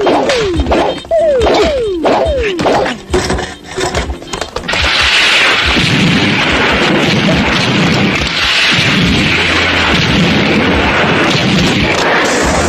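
Film fight sound effects: a quick string of falling electronic zaps mixed with sharp punch and impact knocks, then, from about five seconds in, a sustained loud rush of noise with a low pulsing beneath, as of explosions and billowing smoke.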